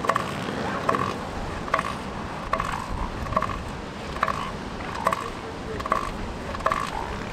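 Bull northern elephant seal giving its pulsed threat call: an even train of deep, clapping pulses, a little faster than one a second.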